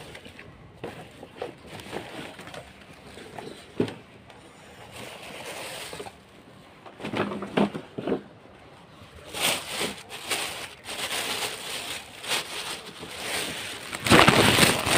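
Paper shopping bags rustling and crinkling as they are handled, with light knocks and bumps; near the end a louder, denser rustling noise.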